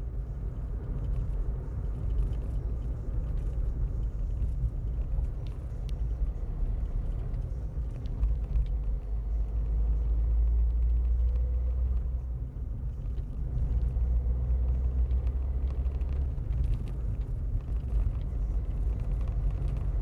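Steady low rumble of a car driving on a highway, engine and tyre noise heard from inside the cabin, easing briefly about twelve seconds in.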